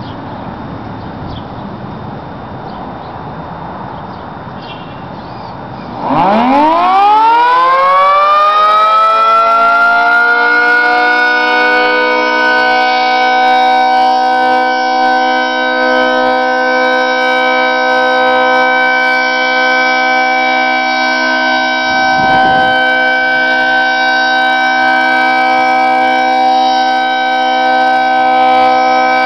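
1973 Federal Signal 2T22A two-tone outdoor warning siren starting up about six seconds in: its pitch climbs fast as the rotor spins up, then levels off into a steady, dissonant chord that holds, as on the steady Alert signal. Before it starts there is only a steady rushing noise.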